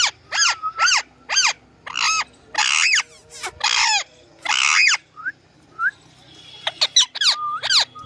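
Parrot calling over and over: a fast string of short, sharp squawks that sweep up and down in pitch, with three longer, harsher screeches around the middle, a short pause with two small chirps, then more quick squawks.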